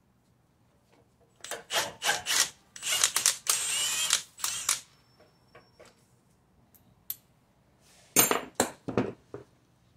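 Metal tools and bolt hardware clicking and clanking as a front differential mounting bolt is taken out. There are two bursts of sharp metallic clatter: a longer one with a brief scrape starting about a second and a half in, and a shorter one near the end.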